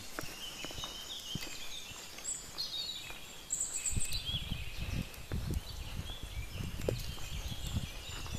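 Forest birds chirping and calling in short phrases, with irregular low thumps of footsteps and handling noise starting about halfway through as the hiker walks a dirt forest path.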